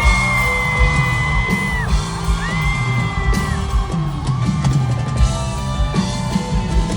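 Live rock band playing at full volume, drums under long held melodic notes, with crowd yells and whoops over it.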